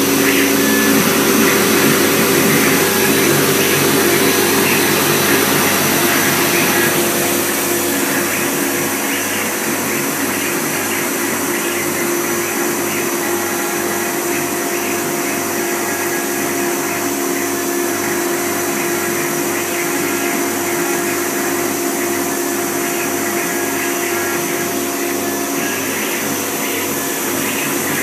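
OMNI 1325 CNC router engraving a wooden board: a steady spindle whine and cutting noise with the rush of the dust extraction drawing air through the hose, a little quieter from about seven seconds in.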